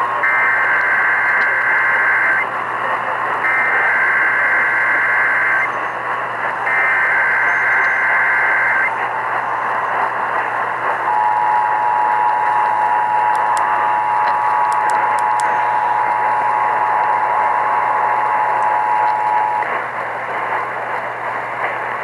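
Emergency Alert System Required Monthly Test heard over a Sangean portable AM radio's speaker through static hiss and hum. Three bursts of the SAME digital header, a harsh two-tone data warble about two seconds each, play about a second apart. The steady two-tone EAS attention signal then sounds for about eight seconds.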